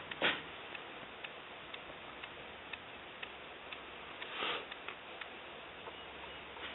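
Faint, regular ticking, about two ticks a second, over a steady hiss, with a brief rustle about four and a half seconds in.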